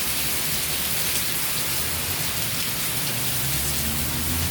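Heavy rain from a tropical storm's outer bands falling steadily, a dense even hiss of rain on surfaces. A low hum builds up in the last second or so.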